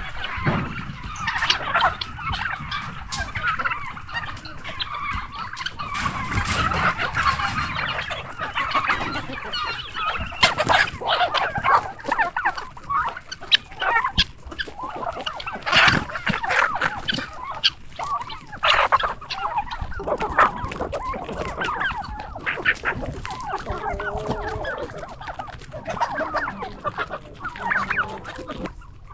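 Flock of chickens clucking as they feed on scattered grain, with many calls overlapping throughout.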